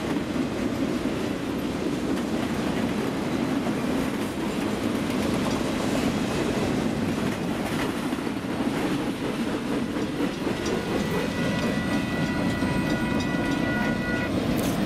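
Freight train of boxcars rolling past at close range: a steady rumble and clatter of steel wheels on the rails. Faint thin high tones join near the end.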